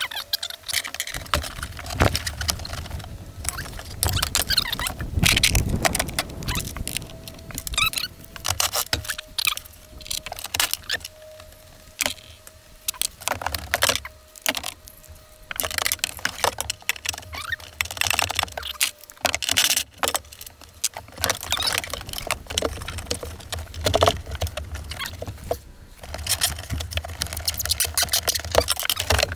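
Hand tools and metal parts clinking, rattling and clanking in irregular clicks as the fuel lines and hold-down bolts are worked loose from a jet ski's fuel tank.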